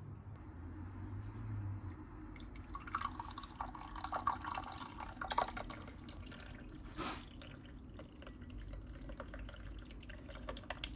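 Tea poured from a glass teapot into a cut-glass teacup: a trickling, splashing stream that starts a couple of seconds in and runs on with irregular little drips and splashes.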